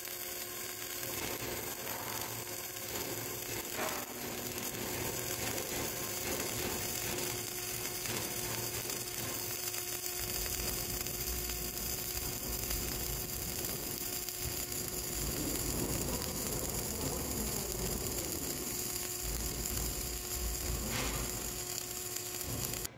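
Flux-cored arc welding on steel: the arc crackles and sputters steadily, throwing spatter, through one long continuous pass, and stops suddenly at the end when the arc is broken.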